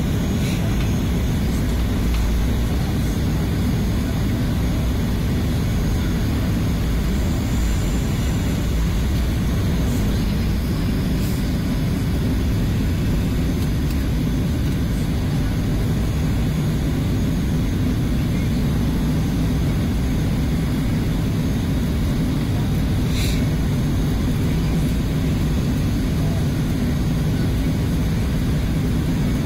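Airliner cabin noise heard from a passenger seat: the jet's engines and airframe make a steady low rumble that neither rises nor falls, with no spool-up for takeoff. One short click comes about three-quarters of the way through.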